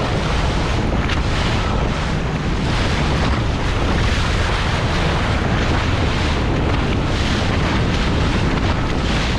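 Strong wind buffeting the microphone on a small boat at sea, a steady, loud rumble over the sound of waves and water.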